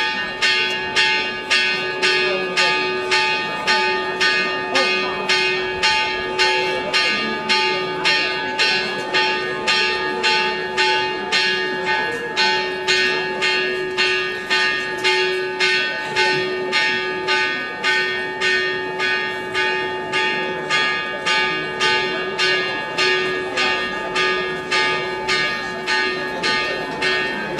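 A church bell struck quickly and evenly, about two strokes a second, its tone ringing on between strokes. The ringing starts suddenly and stops shortly before the end.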